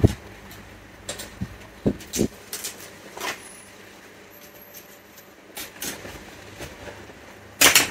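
Scattered clicks and knocks of hands handling laptop parts and small components on a workbench, with a louder knock near the end.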